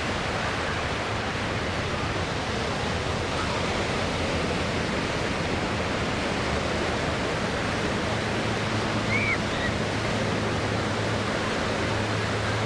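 Steady rushing noise of surf along the beach. About eight seconds in, the low steady drone of a Pitts aerobatic biplane's engine and propeller comes in and holds as the plane flies closer.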